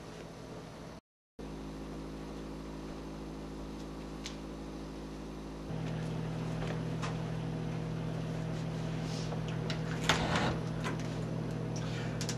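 Steady low electrical hum of room tone. It steps up louder about halfway through, and a few faint clicks and rustles come near the end.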